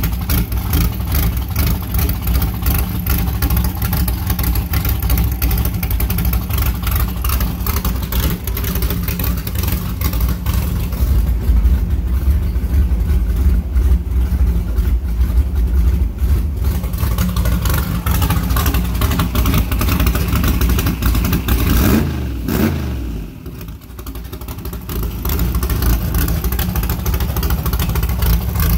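A freshly built 427 cubic inch LS V8 (Bullet Race Engines, Dart SHP block) running on its first fire-up through an open exhaust. About three quarters of the way through, the pitch falls away and the sound drops briefly, then picks back up to a steady run.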